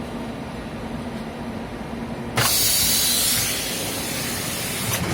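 Textile factory machinery running with a steady hum; about two and a half seconds in, a sudden loud hiss of air breaks in, holds for about a second, then eases off to a quieter hiss.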